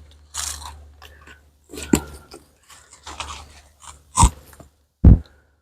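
Beehive frame being handled and worked free: crunching and scraping of wax comb and wood, with a few sharp clicks and knocks, the loudest about five seconds in.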